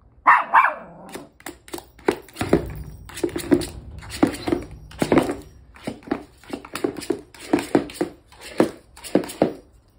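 A Pomeranian and a Chihuahua rummaging in a basket of dog toys: a loud sharp sound just after the start, then irregular knocks, clatters and rustles of toys against the basket, about one or two a second.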